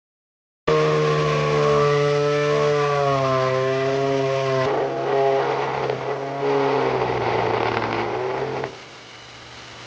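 Hammerhead 2.2-amp corded oscillating multi-tool running with a loud buzzing whine that starts suddenly, its higher tones wavering in pitch as it works. Near the end it drops much quieter.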